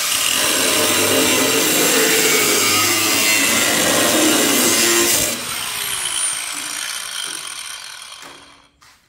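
Handheld angle grinder cutting through the sheet-steel ends of a pickup bed, a steady loud grind. About five seconds in the wheel is lifted off and the grinder winds down with a falling whine, stopping near the end.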